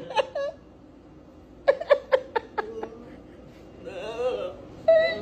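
A man laughing in short, rapid bursts, with a brief stretch of voice near the end.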